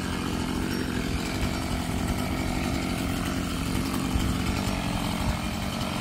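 A chainsaw running at a steady pitch.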